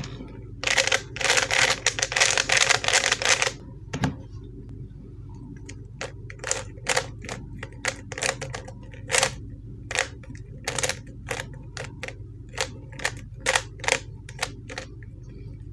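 ShengShou 3x3 plastic puzzle cube being turned by hand: a fast clattering run of turns for the first few seconds, then single clacking turns about two a second. With the timer still at zero, this is scrambling before a timed solve. The cube turns stiffly.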